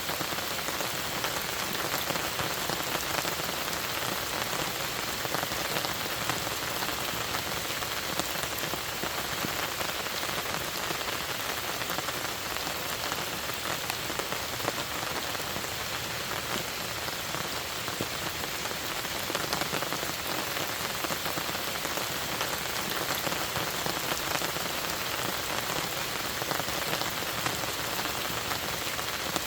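Steady rain falling on a lake, a dense even hiss of many drops hitting the water.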